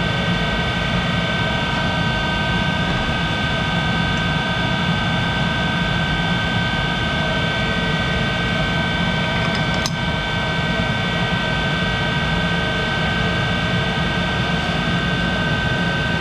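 1951 Monarch 10EE lathe's drive running with a steady hum and a set of high whining tones, with one sharp click about ten seconds in.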